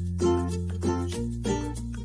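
Background music: bright plucked notes at about three a second over a steady bass line that changes pitch about a second in.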